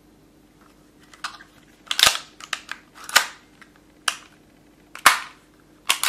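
Tokyo Marui H&K USP gas blowback airsoft pistol being worked dry by hand, its slide pulled back and snapping forward in a series of sharp clacks and clicks. The loudest clacks come about two, three and five seconds in.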